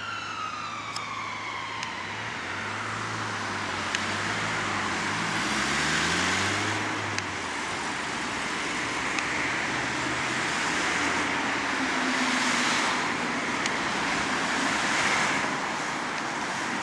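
Ambulance siren wailing, its pitch falling as it fades away in the first two seconds, followed by road traffic: an engine speeding up and cars passing in several swells of tyre noise.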